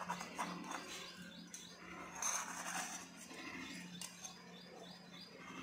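Serrated knife scraping around the inside of a small stainless steel cup to loosen steamed dhokla, with light metallic clicks and scrapes over a steady low hum.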